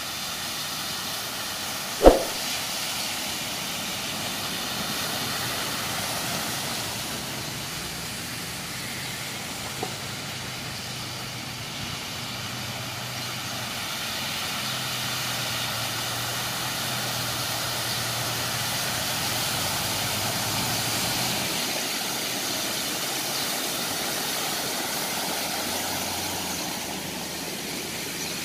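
Cars driving through floodwater on a road, their tyres throwing up water in a steady hiss, with engines passing slowly. A single short knock about two seconds in.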